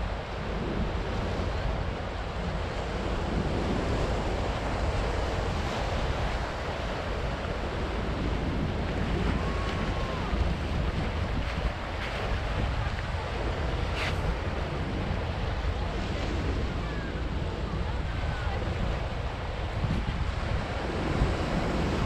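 Ocean surf breaking over shoreline rocks and washing up the beach in a steady continuous wash, with wind rumbling on the microphone.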